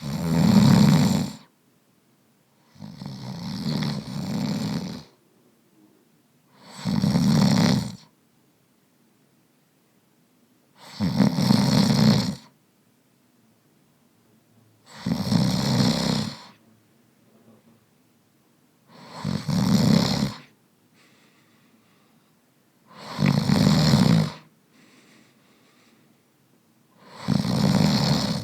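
A man snoring: eight snores at an even pace about four seconds apart, each lasting a second or two, with near quiet between them. The second snore is longer and softer than the rest.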